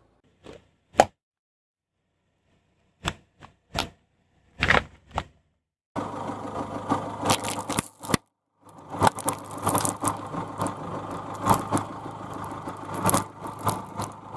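A few separate sharp pops and cracks as a car tyre bursts small plastic liquid-creamer cups. From about six seconds in, a continuous dense crackling and crinkling, with the car's engine humming underneath, as the tyre rolls onto plastic-wrapped bars of soft clay and squashes them, with a brief break near the eight-second mark.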